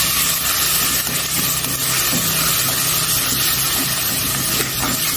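Minced pork sizzling steadily as it is stir-fried with garlic in an aluminium pot and turned with chopsticks.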